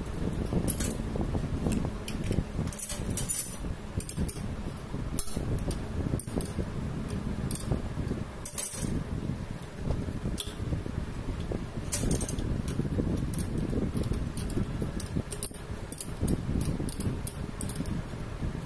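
Small metal parts and a spanner clinking irregularly while a rotary diesel injection pump's governor linkage is worked on by hand, over a steady low rumble.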